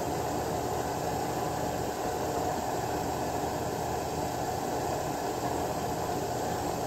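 Steady background hiss with a low hum underneath, even throughout with no distinct knocks or clicks.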